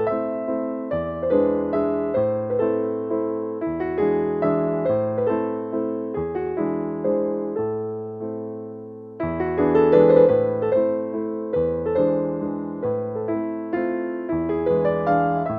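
Solo keyboard music in a piano or electric-piano sound: a slow chord progression with low bass notes changing every second or two under repeated struck, fading notes higher up.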